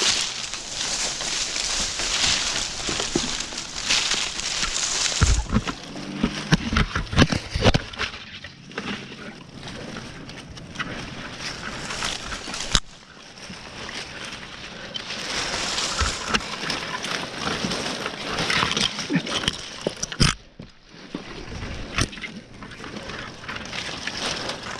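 Rustling and scraping of a tree climber moving among leafy branches and handling his flipline and rope, with a few sharp clicks.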